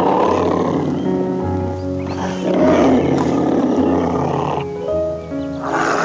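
Tiger growling in three long, rough bursts over background music with held notes.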